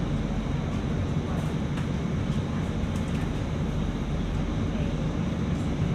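City bus running along its route: a steady low engine and road noise with no sharp events.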